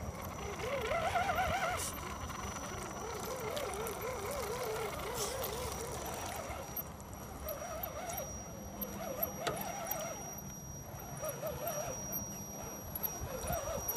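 Electric motor and gearbox of a radio-controlled scale crawler truck whining under load as its tyres churn through mud, the pitch wavering up and down in several spells.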